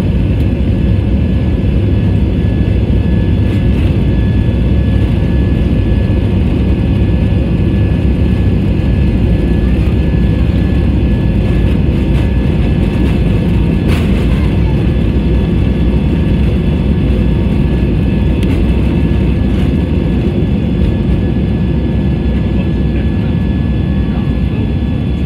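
Cabin noise of a jet airliner during its takeoff roll and lift-off: the engines at takeoff thrust and the wheels on the runway make a loud, steady rumble with faint steady tones above it. A single brief click comes about halfway through.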